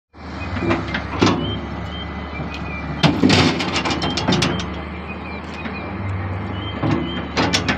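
Heavy diesel machinery running steadily, with clusters of sharp knocks and clanks about a second in, from about three to four and a half seconds, and again near the end.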